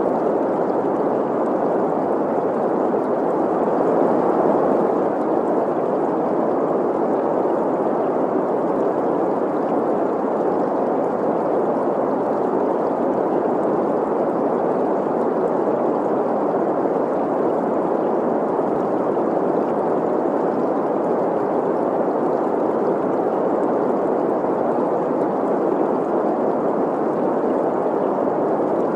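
Steady synthetic green noise, a soft even hiss centred on the middle frequencies, blended with the running of a babbling stream.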